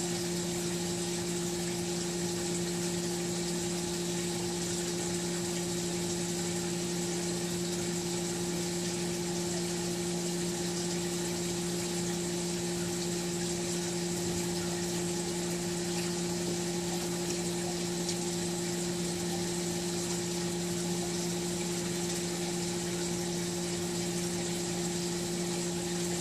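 Steady hum of the aquaponic system's water pump, with water trickling into the bell siphon of a flood-and-drain grow tray that is nearly full; the siphon has not yet started.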